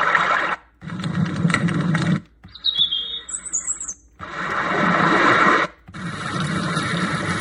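Alarm clock's built-in sound machine stepping through its white-noise and nature sounds: stretches of steady rushing noise a second or two long, each cut off abruptly and replaced by the next, with short bird-like chirps about three seconds in.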